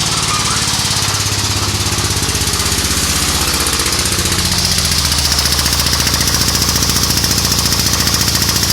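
A machine running steadily with a fast, even pulse, getting slightly louder about halfway through.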